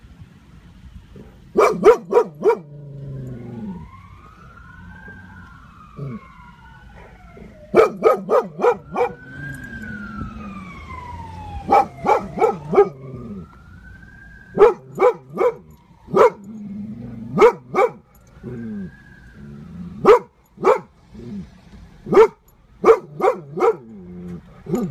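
Dog barking loudly in quick bursts of three or four barks, every few seconds. Between the bursts come slow rising-and-falling wails.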